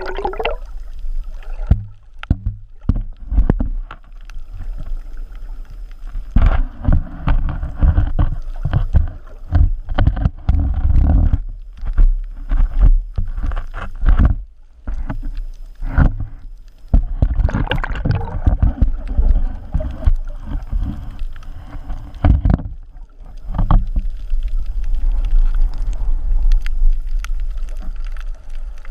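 Underwater surge churning over a shallow reef, heard from a submerged GoPro Hero3 Black: a low rushing rumble full of clicks and crackles from aerated, bubbling water. It swells and eases in waves, with quieter spells a few seconds in and about halfway through.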